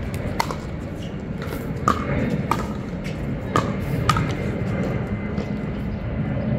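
Pickleball rally: a plastic ball is struck by paddles and bounces on the hard court, giving about five sharp pops over the first four seconds before the rally ends.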